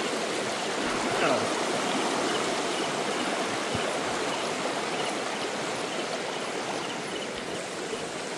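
Shallow, fast stream rushing steadily over rocks and around a line of sandbag stepping stones.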